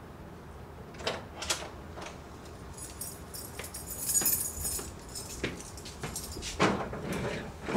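A classroom door being opened: a couple of clicks from the handle and latch, a high metallic jingle as the door swings open, then footsteps as someone walks in.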